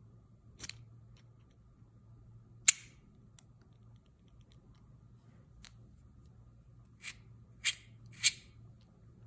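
Sharp metallic clicks from handling a small aluminium-alloy precision screwdriver, its bit and knurled chuck collar clicking as they are worked by hand. About six separate clicks, the loudest a few seconds in and three in quick succession near the end.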